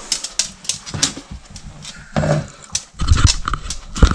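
A small dog scrambling about on a hard floor as she searches for treats: quick clicks and taps from her claws and from the things she noses at, with heavier knocks near the end.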